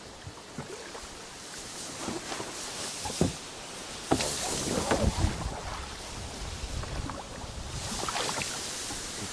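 Water splashing around a small boat, with scattered knocks. The splashing is heaviest about halfway through and again near the end.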